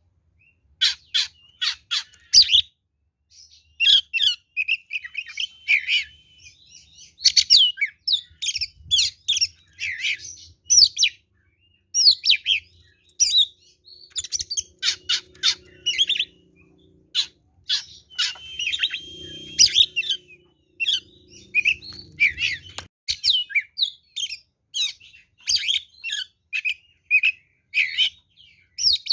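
Oriental magpie-robin (kacer) singing loudly in rapid runs of sharp chirps, whistles and harsh notes, with short pauses between the runs.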